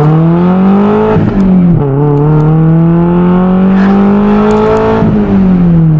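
Toyota MR2 Spyder's 1.8-litre four-cylinder engine pulling away under acceleration. The revs climb, drop sharply about a second in as a gear is changed, climb steadily again, and fall away near the end. The owner suspects this engine of misfiring, though to him it sounds healthy.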